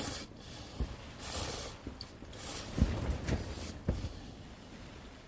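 A person slurping hot rice noodles, two or three breathy slurps each about a second long, with a few dull low knocks in between.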